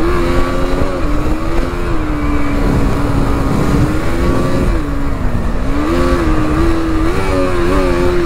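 KTM Duke's single-cylinder engine pulling hard on the road, its pitch rising and falling with throttle and gear changes, dipping about five seconds in and climbing again a second later, with wind rush on the bike-mounted microphone.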